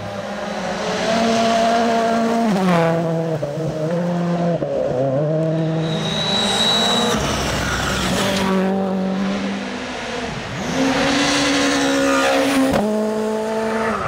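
Rally car engines at full throttle on gravel stages, one car after another. Each engine note climbs, then drops suddenly at the gear changes, several times over.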